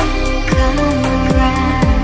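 Background music: an electronic track with sustained synth tones and deep, booming drum hits a little under a second apart.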